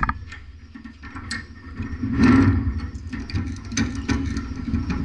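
Small bench vise being loosened by hand: scattered clicks and rattles from the sliding handle and screw, with a louder stretch about two seconds in, over a steady low hum.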